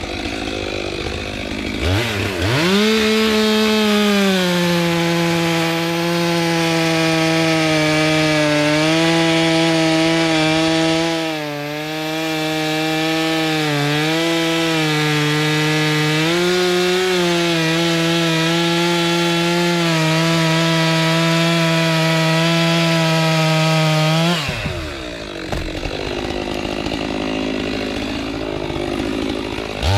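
Stihl chainsaw revving up to full throttle about two seconds in and cutting through kapok wood, its pitch pulled down and wavering under load. Near the end it drops back toward idle, then revs up again.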